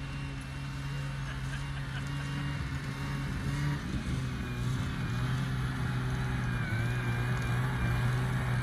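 Snowmobile engine running steadily while towing a tube across the snow, slowly growing louder as it comes closer; its pitch drops about four seconds in and shifts again near the end.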